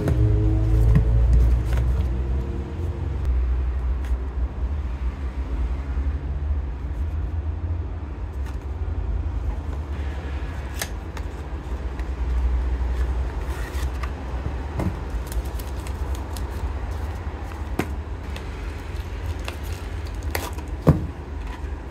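Cardboard inner-tube boxes being handled and opened by hand: scattered light clicks and rustles, with one sharper snap near the end. A steady low rumble runs under it throughout.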